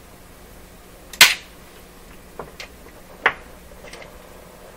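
Ground lead's clip being hooked onto a vacuum-tube voltmeter: a few sharp clicks and taps, the loudest about a second in, over a low steady hum.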